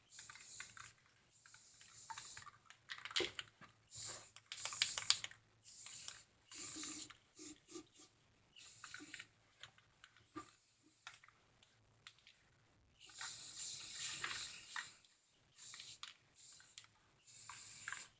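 Aerosol spray-paint can spraying in short, faint hissing bursts, with scattered clicks and knocks of handling between them.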